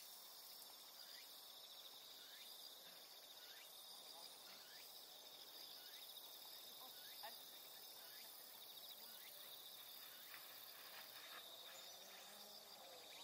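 Faint steady chirring of insects in grass, a high, finely pulsed trill that never stops. Soft, short falling chirps repeat through it about once a second.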